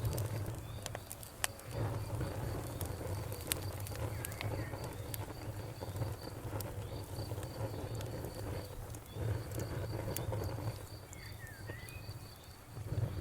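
Wood fire crackling, with scattered sharp pops over a steady low rumble of flames. Crickets chirp in a steady, even rhythm in the background.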